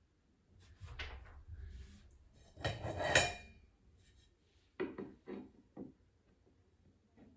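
Parts of a flat-pack coffee table being handled during assembly: a rattling clatter about three seconds in is the loudest moment, followed by four short knocks.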